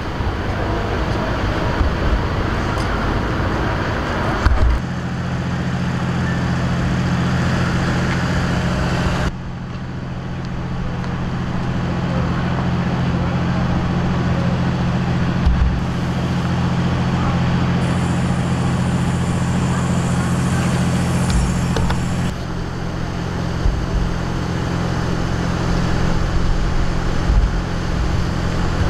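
Street ambience with traffic noise and a steady low hum of idling vehicle engines. The sound changes abruptly a few times.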